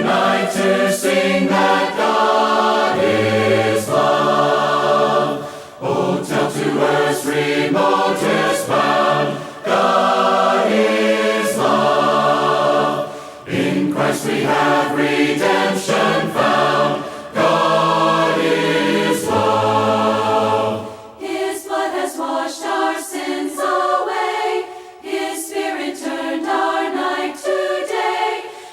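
Unaccompanied choir singing a slow hymn in harmony, voices holding notes in phrases of a few seconds with short breaks between them. Near the end the low voices drop out and only the higher parts carry on.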